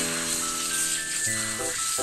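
Slices of beef sizzling in hot oil in a stainless steel frying pan as they are laid in, a steady high hiss, with light background music over it.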